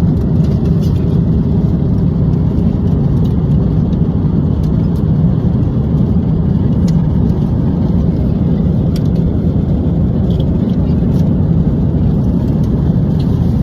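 Steady airliner cabin noise at cruise inside an Airbus A350-900: a constant low rush of airflow and engines, with a few faint light clicks.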